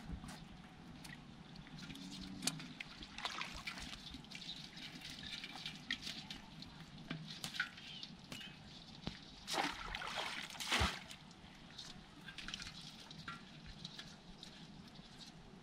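Water sloshing, trickling and dripping as a bamboo fish trap is lifted and shaken out over an aluminium pot standing in the water, with scattered small splashes and taps. The biggest splashes come about ten seconds in.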